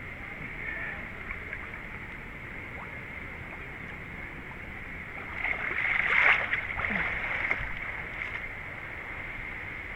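Water splashing and sloshing as a runner wades through a creek, with a louder surge of splashing about six seconds in.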